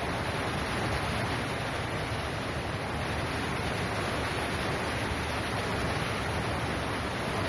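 Steady, even hiss of background noise, unchanging throughout, with no distinct events.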